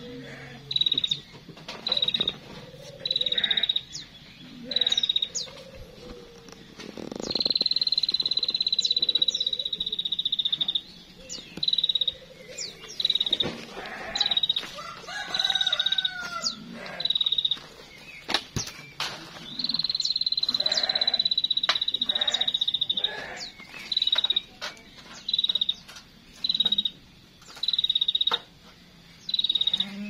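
Rhythmic high-pitched trilling calls from an animal, short pulses about once a second broken twice by a long trill lasting several seconds, with small birds chirping between them.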